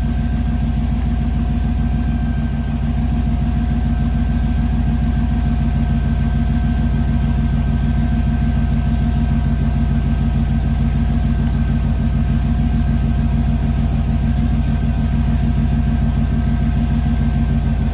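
Chevy Tahoe V8 idling steadily, with a thin, steady hissing whistle over it from a vacuum leak at an uncapped vacuum port on a small valve.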